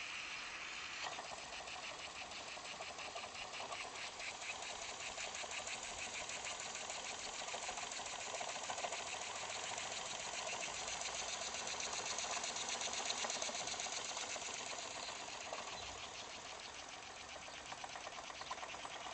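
Carette 147/2 live-steam toy engine running fast: a rapid, even chuffing clatter from its small cylinder and moving parts, many beats a second, holding steady throughout.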